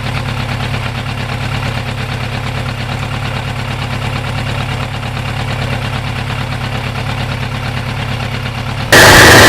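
An engine idling steadily with a fast, even pulse. Near the end a much louder, harsher engine noise cuts in abruptly.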